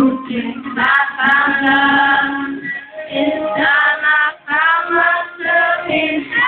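Live pop music: a woman singing into a microphone over the band's music, with long held and bending sung notes.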